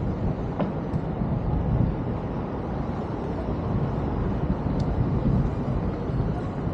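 Steady low rumble of city street traffic heard while riding a bicycle, with a couple of faint short ticks.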